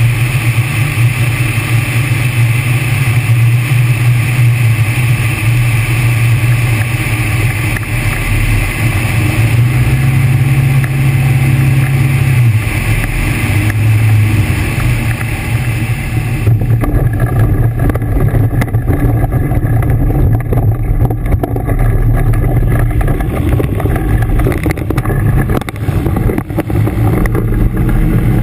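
Air Creation Tanarg microlight trike's engine and pusher propeller running at low power through landing and rollout, a steady hum that drops in pitch a little before the middle. A rushing airflow hiss over it cuts off suddenly about two-thirds of the way through as the trike slows, leaving the engine near idle.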